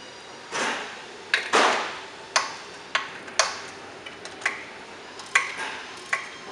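Sharp metallic clicks and clinks, irregular, about one every half second, with two short scraping sounds near the start: hand tools and bolts being handled while the shipping caging bolts are taken out of a Solo self-adjusting truck clutch.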